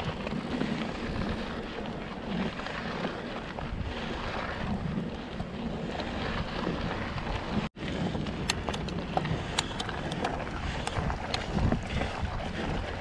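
Wind buffeting the microphone of a handlebar-mounted action camera as a mountain bike rolls along a dirt and gravel trail, with scattered sharp clicks and ticks from the bike and stones in the second half. The sound cuts out for an instant a little under eight seconds in.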